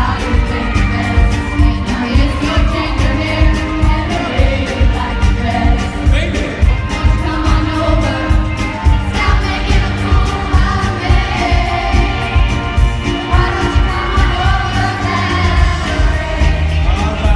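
Women singing karaoke together into microphones over a loud backing track with a steady beat.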